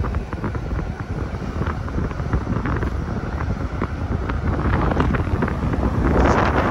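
Wind buffeting the microphone and road noise from a moving car, growing louder near the end.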